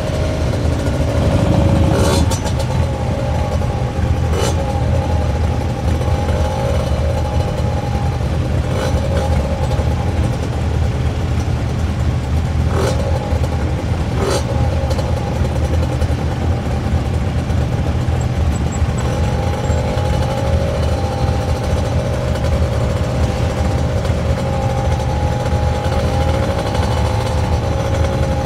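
A queue of motorcycles idling and rolling slowly past, their engines running steadily, with the pitch rising and falling as riders open and close the throttle. A few short sharp clicks sound over the engine noise.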